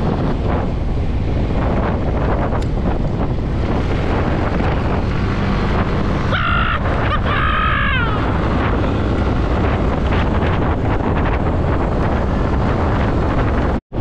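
Wind buffeting the microphone over the steady road and engine noise of a moving motor scooter. About halfway through there are two short, higher pitched sounds, and the sound cuts out for an instant near the end.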